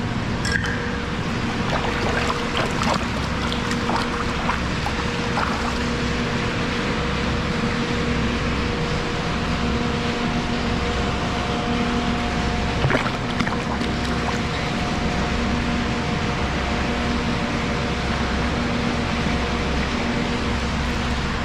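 Creek water running steadily through a tunnel, an even rushing hiss under a faint steady hum, with a few light clicks in the first few seconds and one more about halfway through.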